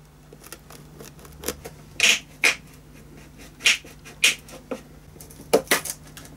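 Violin neck joint, its glue softened with hot water, being worked loose from the body with a thin blade: a run of irregular sharp cracks and creaks of wood and glue, several of them loud.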